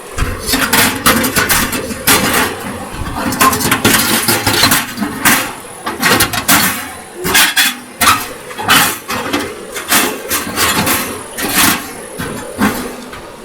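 Screens being slipped into a toolbox sluice box: repeated clanks, clicks and rattles of the parts knocking into place.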